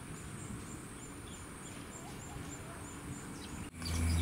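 Outdoor wetland ambience: a faint, high-pitched chirp repeats about three times a second over a low, uneven rumble. A low steady hum starts suddenly near the end.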